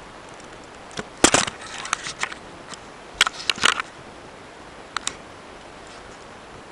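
Scattered sharp clicks and knocks over a steady faint hiss, bunched about a second in, again around three and a half seconds, and a last pair near five seconds. No engine is running yet.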